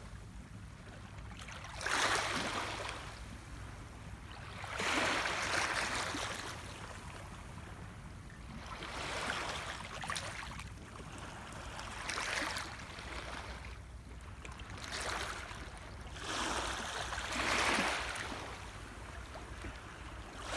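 Small gentle waves lapping at the shore, each wash swelling and fading again, one about every three seconds.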